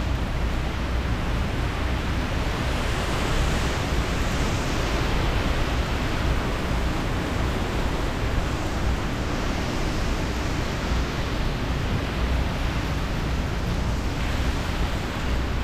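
Hurricane wind and heavy rain: a dense, steady rush of rain with the wind swelling in gusts a few times, over a constant low rumble.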